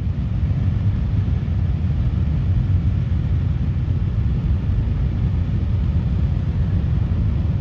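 Epsilon S rocket's solid-fuel motor firing in a static ground test: a steady, deep rumble with a hiss on top, no break or blast within these seconds.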